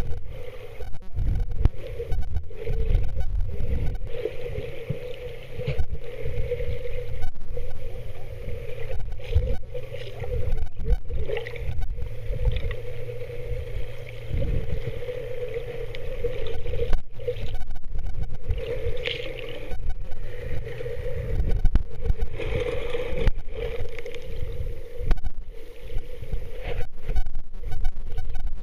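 Muffled underwater sound picked up by a camera in a waterproof housing: a low, fluctuating rumble of water moving past, with a steady drone running underneath.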